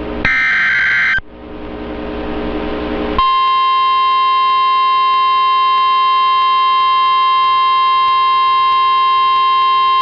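Emergency alert header: a burst of digital SAME data, about a second of warbling electronic screech, followed by a couple of seconds of radio hiss, then from about three seconds in the steady 1050 Hz weather radio warning alarm tone, one unbroken loud beep. It signals that a weather warning is about to be read.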